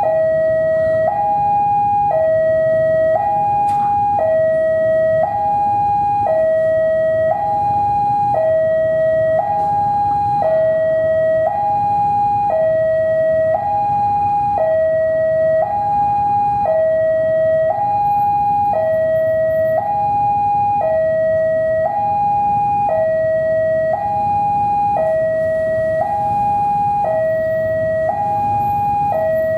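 Railway level-crossing warning alarm sounding a steady two-tone hi-lo pattern, each tone about a second long, over a low diesel locomotive rumble.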